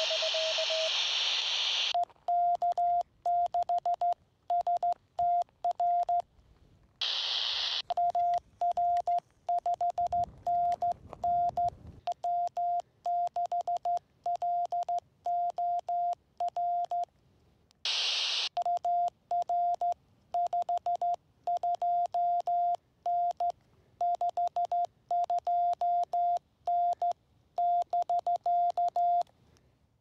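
Ham radio Morse code (CW): a single clean tone near 700 Hz keyed on and off in dots and dashes, with brief rushes of radio receiver hiss about 7 seconds and 18 seconds in. At the start, a Morse tone is heard under hiss.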